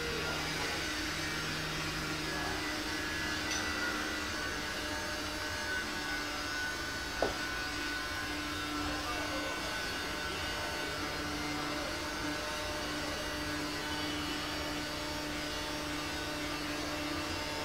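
Steady background hum and hiss with a few held tones, like a fan or other machine running, and one short click about seven seconds in.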